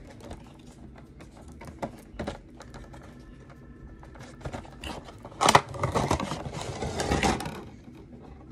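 Cardboard Funko Pop box being handled and opened, with scattered taps and scrapes of the flaps. A louder stretch of rustling and scraping comes a little past halfway as the figure is worked out of its packaging.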